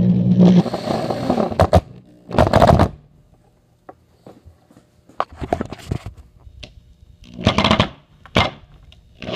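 Power drill driving a black drywall screw through a wooden keel board into a wooden base. The first run lasts about two seconds, with a steady motor hum, and several short bursts follow as the screw is driven home.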